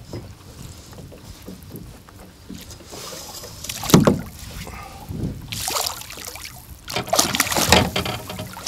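A pike thrashing in a landing net at the water's surface, splashing in bursts, with the loudest splash about four seconds in.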